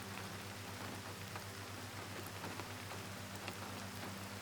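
Steady gentle rain: an even soft hiss with faint scattered drop ticks, over a low steady hum.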